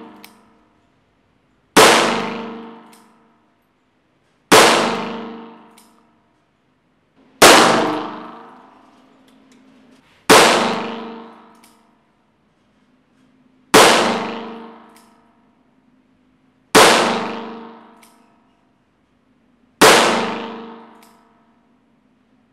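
Seven .38 Special shots from a Taurus 856 Defender steel-frame revolver, fired one at a time about three seconds apart. Each shot has a long ringing echo off the indoor range walls.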